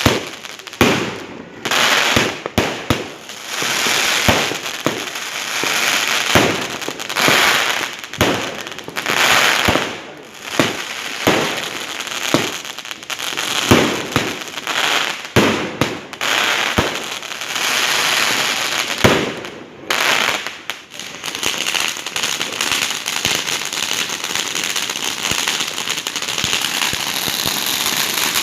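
Fireworks and firecrackers going off: many sharp bangs one after another amid crackling, giving way about three-quarters of the way through to a dense, steady crackle.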